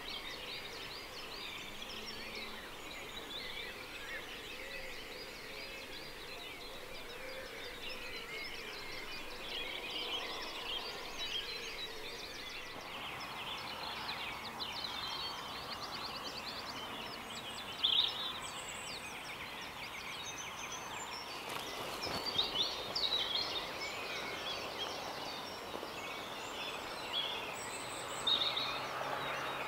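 Dawn chorus: many small birds singing and calling together, with a few louder nearby calls in the second half.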